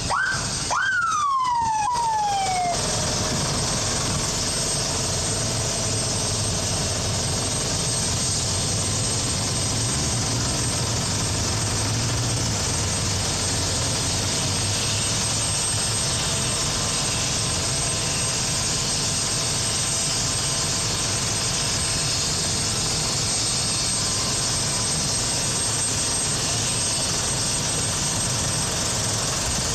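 A police siren gives two quick whoops in the first few seconds, the second falling slowly as it winds down. After that comes a steady high whine and rush over a low hum, from a turbine helicopter running on the ground.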